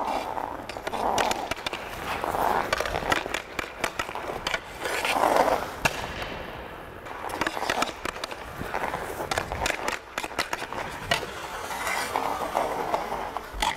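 Hockey skate blades carving and scraping across rink ice in repeated swishes, with sharp clicks of the stick blade on the puck.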